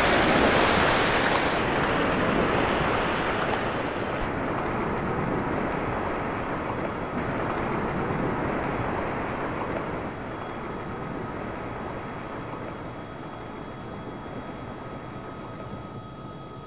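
Noisy roar of an explosion, loudest at first and fading away steadily, with a few faint steady tones showing through in the second half.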